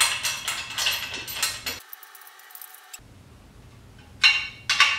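Metal screws and the hose reel's metal mounting plate and arm clinking and rattling as they are handled and lined up, with a quieter stretch in the middle and then two sharp metallic clicks near the end.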